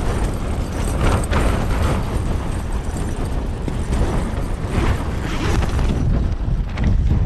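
Strong gusting wind buffeting the microphone and shaking a Hilleberg Soulo tent's fabric: a deep, steady rumble with gusts surging about a second in and again around five seconds.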